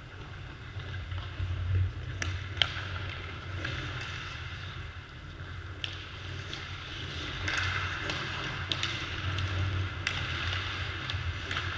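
Ice hockey practice on an indoor rink: skates scraping the ice and sharp clacks of sticks and pucks now and then, the sharpest about two and a half seconds in, over a steady low rumble.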